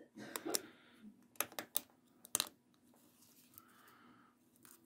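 Small hard clicks and taps of a Redmi Note 4's plastic and metal parts being handled and fitted together, a quick series of them in the first two and a half seconds, then a soft scrape and one more click near the end.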